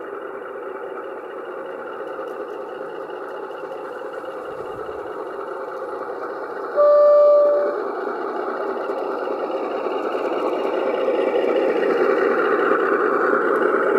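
Heljan O gauge model of a Class 53 'Falcon' diesel locomotive approaching on garden-railway track, its steady running noise growing louder as it nears. About seven seconds in it gives one short horn blast, the loudest sound here.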